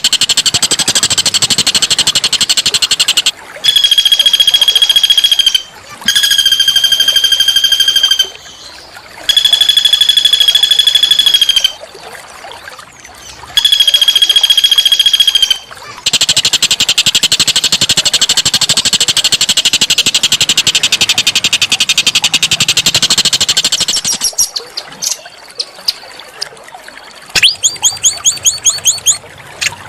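A small songbird's harsh song: a dense, high buzzy trill, then four steady ringing notes of about two seconds each with short gaps, then a long buzzy trill again. Near the end come quick sweeping notes and a fast run of sharp notes, several a second.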